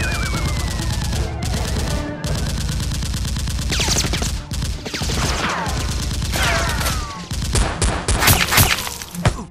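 Rapid automatic gunfire sound effects, dubbed over toy blasters, with several falling ricochet-like whines. Near the end the fire breaks into a few separate, louder shots.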